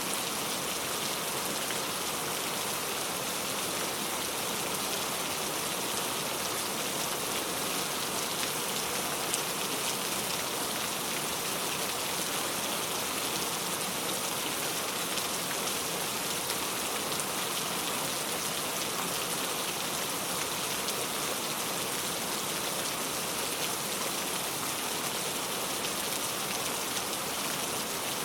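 Heavy rain falling steadily on a road, a dense even hiss without thunder.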